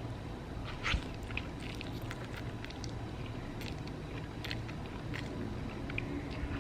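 A person chewing a mouthful of pasta, with scattered small clicks and a sharper knock about a second in.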